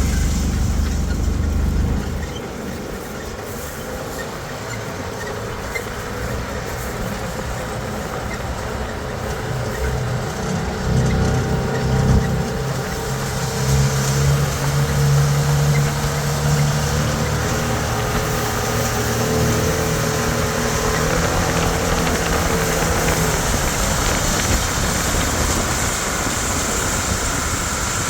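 A 140-horsepower tractor engine running steadily under load while pulling a large hay rake. A heavy low rumble drops away about two seconds in, and a humming tone rises up through the middle before easing off.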